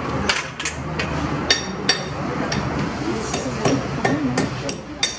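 Irregular metallic knocks and clanks, about ten in five seconds, several leaving a brief high ring, from metal sand-moulding flasks of freshly poured cow-bell moulds being knocked and handled.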